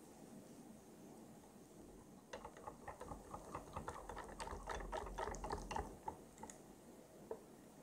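Silicone-coated whisk beating a thin custard mixture in an enamel saucepan: a quick run of light clicks and taps as the wires hit the pot's sides. It starts a couple of seconds in and fades out near the end.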